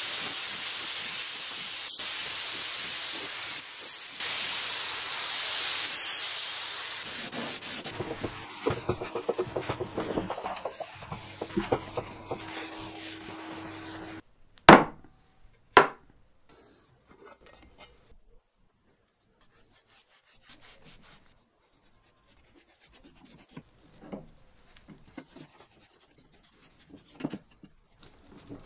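Compressed-air spray gun hissing steadily as it sprays finish onto wood, stopping about seven seconds in. Then a cloth rubbing over the wooden surface in uneven strokes, two sharp knocks about halfway through, and faint rubbing near the end.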